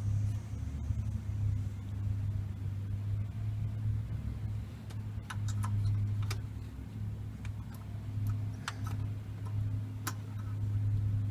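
Cummins Onan 2800-watt gas generator running with a steady low hum. A few sharp clicks and ticks come in the second half.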